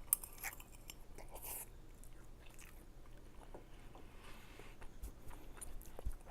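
A person chewing a mouthful of ramen noodles, with a few sharp clicks near the start.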